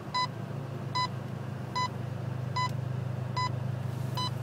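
An electronic beeper sounding short, even beeps about every 0.8 seconds, over a steady low hum.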